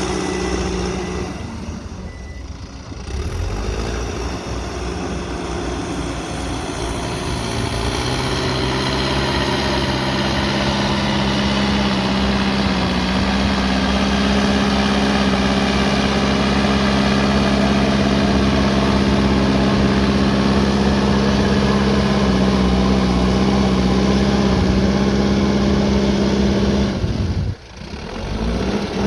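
Mahindra backhoe loader's diesel engine running, climbing in pitch and loudness about eight seconds in and holding there under load, then dropping away suddenly for a moment near the end.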